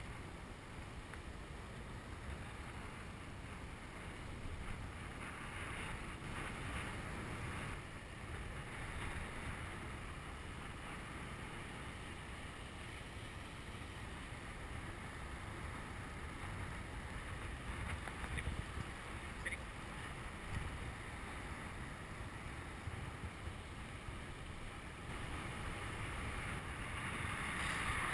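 Wind buffeting the microphone of a camera on a moving bicycle: a steady, low rushing noise that grows a little louder near the end.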